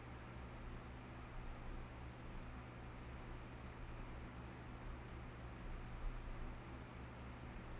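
Quiet room tone: a steady low electrical hum under a faint hiss, with about eight light, sharp ticks scattered irregularly through it.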